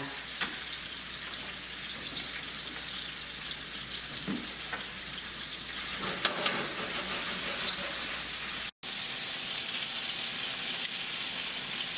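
Chicken pieces frying in hot olive oil in a pan, a steady crackling sizzle with a few light clicks. The sound cuts out for an instant a little before the end.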